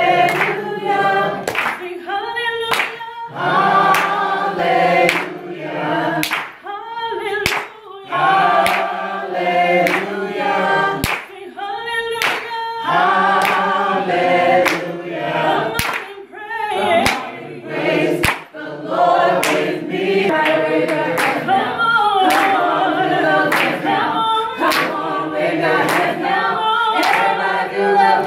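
Four women's voices singing a gospel praise song a cappella in harmony, with sharp hand claps about once a second keeping the beat.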